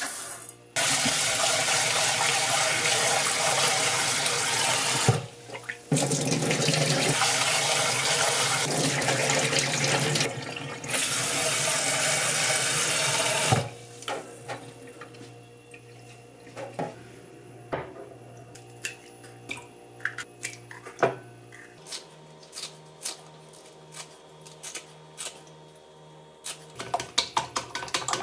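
Kitchen tap running into a rice cooker's inner pot as rice is rinsed, stopping briefly twice, for about the first half. Then scattered clinks and knocks of the pot being handled at a stainless-steel sink, and near the end the quick clicking of chopsticks beating eggs in a glass bowl.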